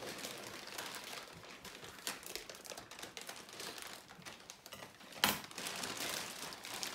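Packaging crinkling and rustling as it is handled, with many small crackles and one sharp crack about five seconds in.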